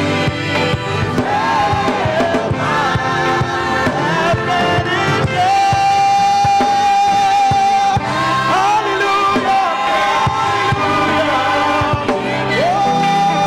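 Gospel choir singing with instrumental backing, holding one long note in the middle.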